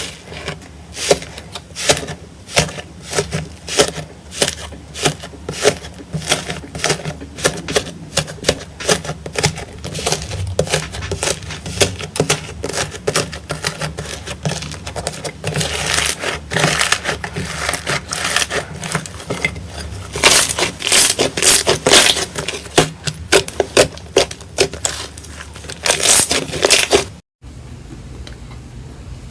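Slime being squeezed and pressed by hand, giving a dense, irregular run of crackles and sticky pops, with louder clusters in the second half; it stops abruptly near the end.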